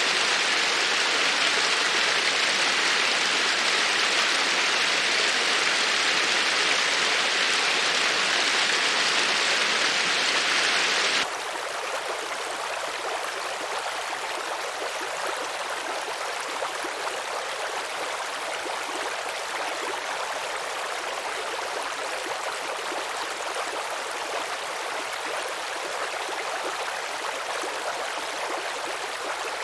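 Flowing water in a steady rush that cuts off abruptly about eleven seconds in. A quieter, more even flow of water follows.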